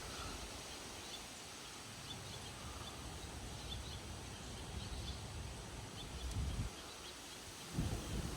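Wind gusting ahead of a thunderstorm's wind front, with a low rumble of wind buffeting the microphone twice near the end. Faint high chirps sound through it.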